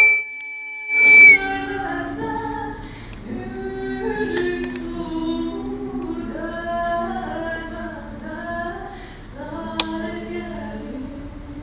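Two women singing a cappella, with long held notes. At the very start, a loud, steady high tone sounds for about a second while the singing drops out.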